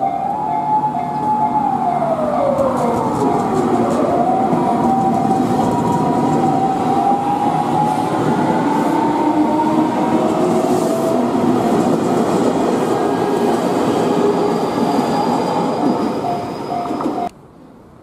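Japanese level-crossing bell ringing in a steady repeating pattern while a JR Kyushu 813 series electric train passes close by. The train's wheels rumble on the rails and a whine glides down and up in pitch. The sound cuts off about a second before the end.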